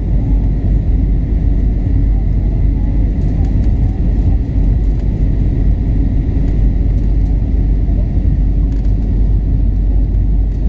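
Steady, loud rumble of an Airbus A320 in its climb after takeoff, heard inside the cabin: engine and airflow noise, with a faint steady high whine above it.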